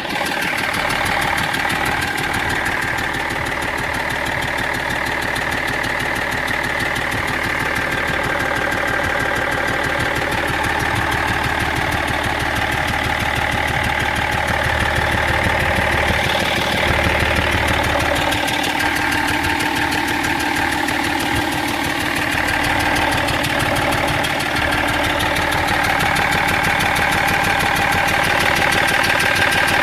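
BMW 330d E46's straight-six turbodiesel idling steadily, with a steady high-pitched whine running over the engine note. This is the abnormal engine noise that no mechanic has been able to trace.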